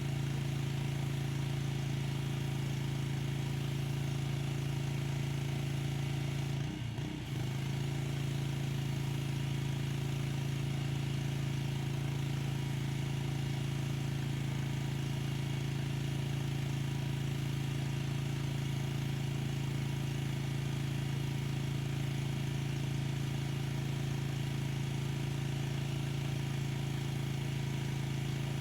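Pressure washer running steadily with a constant hum and a spray hiss, with one brief dip about seven seconds in.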